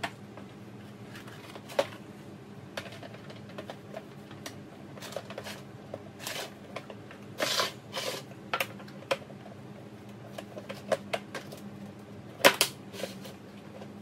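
Tackle box parts clicking and knocking as they are fitted back together: irregular taps and clacks, a brief scrape about halfway through, and the loudest knock near the end.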